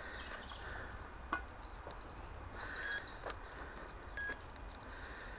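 A metal detector's loudspeaker giving two short beeps a little over a second apart as the coil is swept over a target. There are two sharp clicks earlier, and a faint outdoor hiss under it all.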